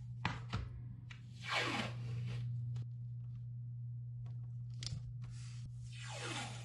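Blue painter's tape being pulled off its roll with a ripping sound, once about a second and a half in and again near the end, with a few light taps as strips are pressed down onto a canvas board.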